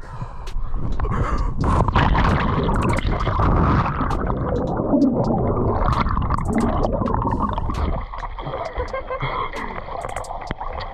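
Water gurgling and sloshing right at the microphone, loud for about seven seconds and then quieter.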